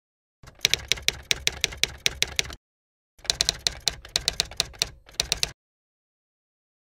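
Typewriter keys striking in two quick, even runs of about five strokes a second, with a short pause between. The typing stops dead about five and a half seconds in.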